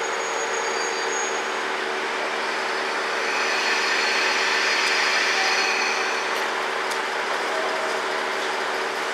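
KiHa 66/67 diesel railcars standing at a platform just after stopping, their diesel engines idling with a steady hum. A swell of hiss rises and falls in the middle, about three to six seconds in.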